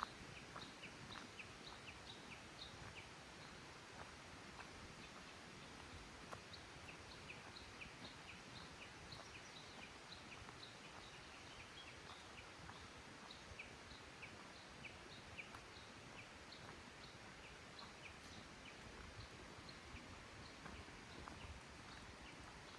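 A small songbird singing a quick two-note phrase, a higher note then a lower one, repeated in runs of several seconds with short pauses, over a faint steady hiss.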